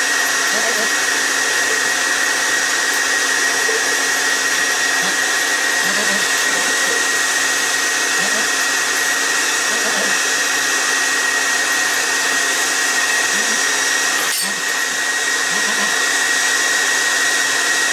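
Steady whir of an electric fan or blower running, with a constant high whine. A single sharp click comes about three-quarters of the way through.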